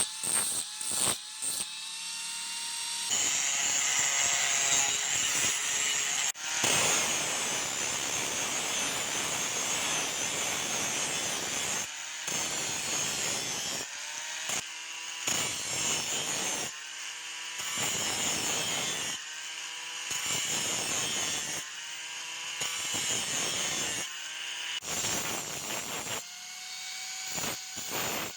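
Power grinder grinding a steel dagger blade. One long pass is followed by a run of short passes every couple of seconds, a harsh hiss each time the blade meets the wheel. In the pauses the grinder's motor whine is heard on its own.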